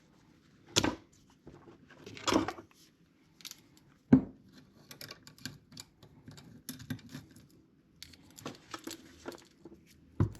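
A saw chain being fitted onto a chainsaw bar: scattered light metallic clicks and rattles, with a few louder knocks.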